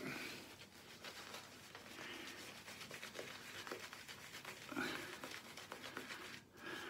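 Fingers rubbing thick homemade shaving-soap lather into a beard and cheeks: faint wet rubbing with fine crackling of the foam.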